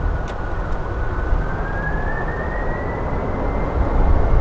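Jet engines of a Boeing 767-300 airliner running at takeoff power on its takeoff roll. A steady rumbling roar carries a high whine that rises in pitch about halfway through.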